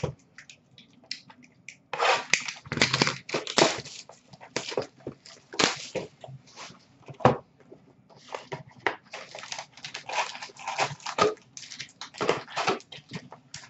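A 2011-12 Panini Contenders hockey cardboard hobby box being torn open and handled: irregular crackling, rustling and tearing of cardboard and wrapper, with light knocks as the packs are tipped out.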